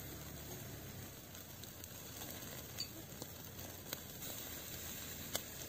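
Rat meat sizzling on a wire grill over a charcoal fire: a steady hiss with a few sharp crackling pops from the embers.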